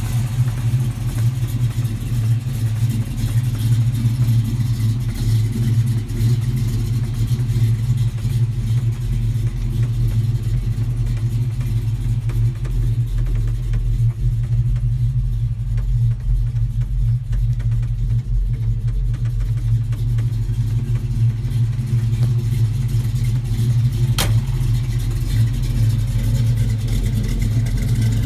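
The engine of a 1956 Chevrolet pickup idling steadily, with one brief click about three-quarters of the way through.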